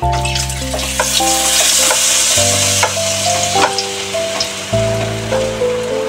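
Besan sev dough strands frying in hot oil in a kadhai: a dense sizzling hiss as the dough is pressed through a perforated ladle into the oil. The sizzle is strongest in the first three seconds and eases after that. Background music with held notes and a stepping bass line plays underneath.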